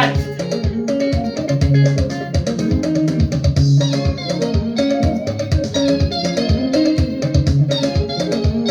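Upbeat dance music with picked guitar lines over a fast, steady drum beat.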